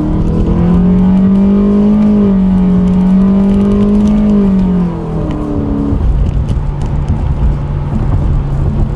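Honda sedan's engine, breathing through a K&N aftermarket air intake, pulling hard under full-throttle acceleration, heard from inside the cabin. Its pitch climbs through the gears and drops as it shifts up, about half a second in and again near five seconds. About six seconds in it settles into a steadier drone with road noise.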